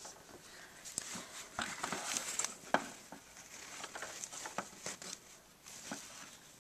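Handling noise from a doll and a plastic dollhouse: scattered light clicks and taps with soft rustling as the doll is moved about.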